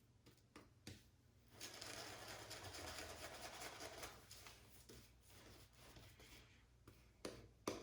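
Shaving brush working soap lather, a soft wet swishing, strongest for a couple of seconds early on and then fainter, with a few small clicks.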